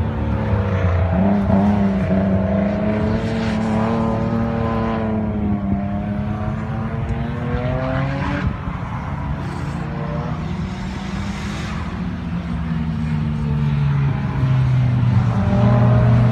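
Race car engines accelerating along a circuit, the pitch climbing under throttle and dropping sharply at gear changes twice. Near the end another car's engine grows louder.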